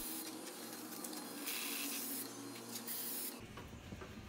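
Powder-coating gun spraying black gloss powder with a steady air hiss over a faint hum, two stronger spurts in the middle, then cutting off suddenly near the end.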